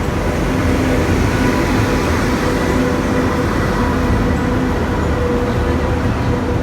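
Gatimaan Express train running: a loud, steady rumble with a faint steady hum over it.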